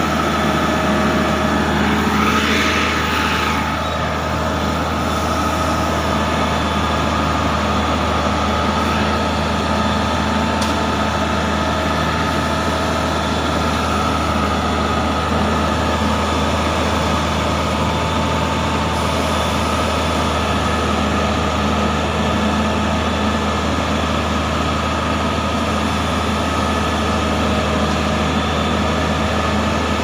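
Heavy diesel engines of a motor grader and a Caterpillar bulldozer running steadily at low revs.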